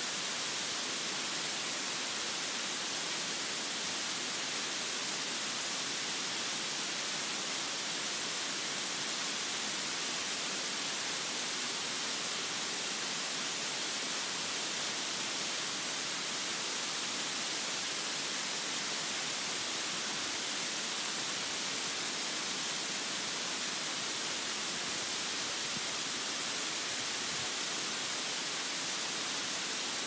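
Small waterfall's falling water making a steady, even hiss.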